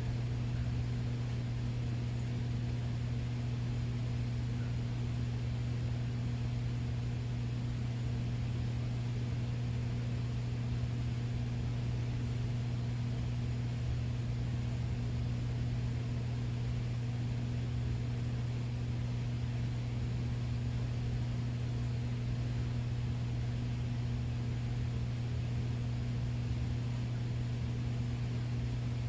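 Steady low hum with an even hiss underneath, unchanging throughout, like a fan or room appliance running.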